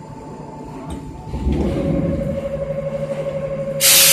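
Milling machine running: a low thump about a second and a half in, after which its steady hum settles to a new, higher tone. Near the end a sudden loud hiss cuts in.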